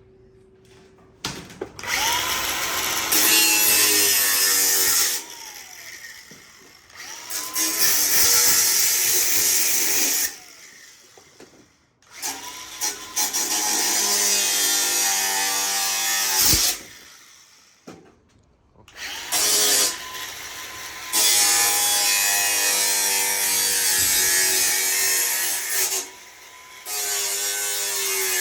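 A handheld electric power tool running in about six bursts of a few seconds each, its motor whining up in pitch at the start of each run, with a harsh high hiss of cutting or grinding throughout.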